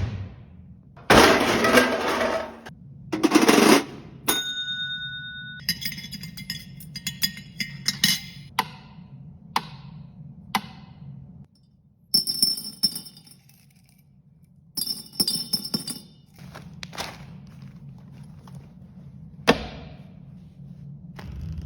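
A string of separate hand-made Foley sound effects: two short loud rushing bursts, a brief steady ringing tone, then clusters of clinks and knocks, two bursts of bright metallic rattling, and a single sharp knock near the end, over a low steady hum.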